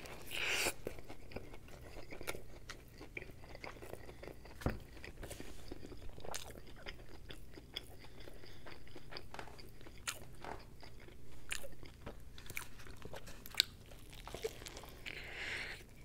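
Close-miked eating of a cheese-stuffed fried mushroom burger: a bite just after the start and another near the end, with wet chewing and small crunchy clicks between them.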